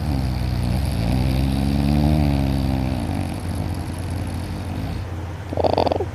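Loud snoring from a person in deep sleep: a long, droning, pitched snore of about three seconds whose pitch rises a little and then falls, then a short, harsher breath near the end.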